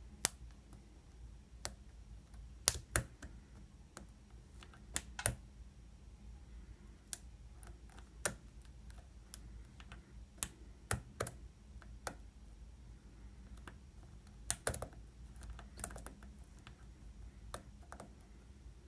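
Irregular sharp metallic clicks and taps of lock picks and a tension wrench working the pin tumblers of a Master Lock bike lock, a few of them louder.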